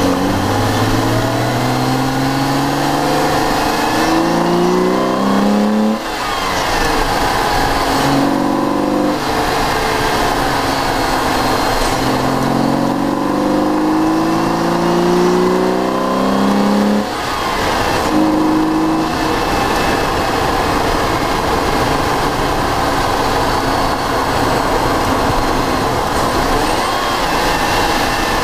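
1998 BMW 323i E46's 2.5-litre inline-six, fitted with a carbon intake, pulling hard through the gears, heard from inside the cabin. The revs climb in several long rising pulls, with brief drops at gear changes about six and seventeen seconds in, then it settles into steadier running for the last ten seconds.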